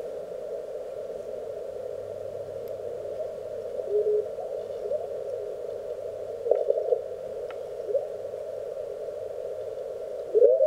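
Receiver audio from an Elecraft K1 CW transceiver being tuned across the 30-meter band: steady band hiss narrowed by its crystal filter into a thin, mid-pitched rush. Faint Morse signals slide up or down in pitch past the dial a few times, and a strong signal comes in just before the end.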